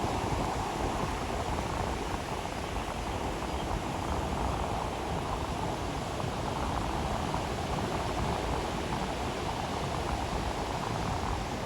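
Waves washing on a beach: a steady wash of surf that swells and eases slightly.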